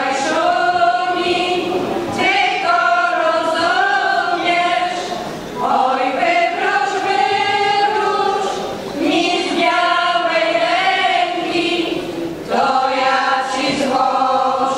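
Women's folk choir singing together without instruments, in long held phrases of about three to four seconds, each followed by a short break for breath.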